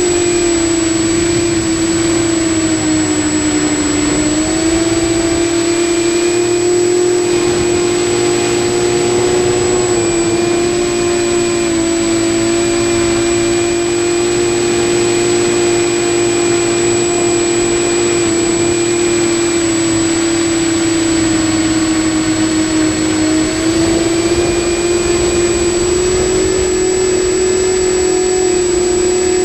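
TBS Discovery Pro quadcopter's electric motors and Graupner propellers running in flight, a loud steady whine heard from on board. The pitch dips briefly about four seconds in and rises a little later as the throttle changes. A thin steady high-pitched whistle sits above it.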